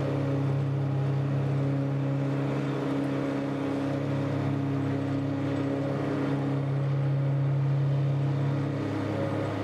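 Tractor engine running at a steady pitch while powering a 12-foot Woods Turf Batwing rotary mower.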